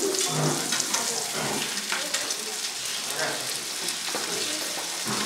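Beef steak sizzling as it pan-sears in a hot pan: a steady hiss flecked with many small crackles.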